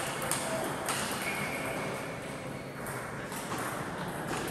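Irregular clicks of table tennis balls bouncing off tables and paddles in rallies across a busy table tennis hall.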